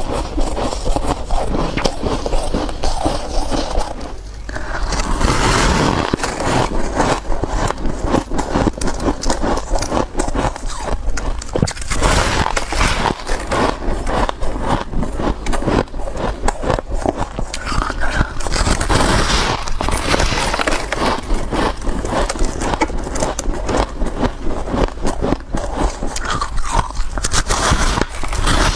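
A person biting and chewing chunks of soft white ice: dense, continuous crunching, with a short pause about four seconds in.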